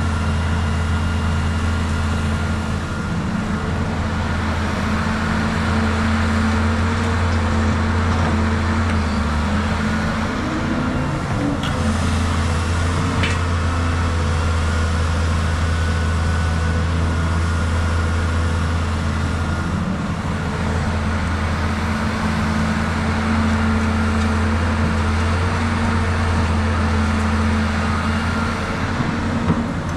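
Cat 320GC excavator's diesel engine running at a steady speed while it digs, with a couple of faint clanks about a third of the way in.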